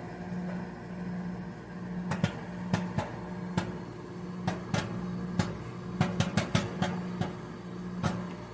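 Microwave oven humming steadily while popcorn kernels pop inside a brown paper lunch bag: scattered sharp pops, a few bunched together a little after the middle. The popping is thinning out, near the end of the batch.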